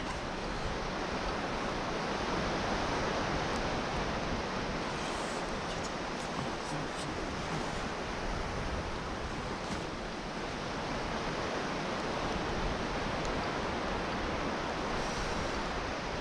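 North Sea surf washing onto a sandy beach: a steady, even wash of breaking waves.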